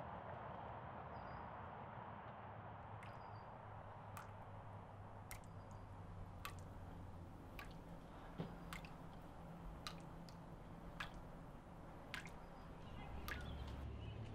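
Quiet room tone with a low hum and a steady hiss. From about four seconds in, single sharp clicks or drips come at a fairly even pace, roughly one every second and a bit.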